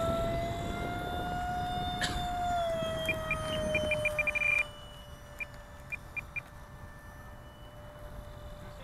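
Electric ducted fan of an Electrifly F-20 Tigershark RC jet whining in flight. Its pitch rises slightly, then falls away and the whine gets quieter. About three seconds in, a run of short electronic beeps quickens into a steady tone that stops abruptly, and a few more beeps follow.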